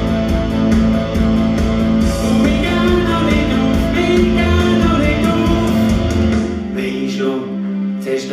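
Two men singing a song in Swiss German over a rock-style accompaniment with guitar, bass and a steady drum beat. About two-thirds of the way through, the drums and bass drop out, leaving mainly the voices.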